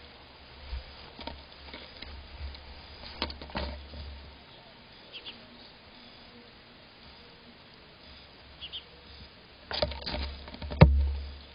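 Bobcat kittens bumping and rubbing against the camera: sharp knocks on its body and fur brushing over the microphone with a low rumble. A pair of knocks comes in the middle, and the loudest come near the end.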